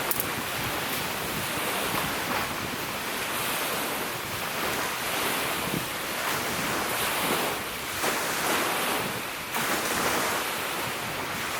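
Strong gusty wind with lake waves washing against the shore, the noise rising and falling in surges, and wind buffeting the microphone.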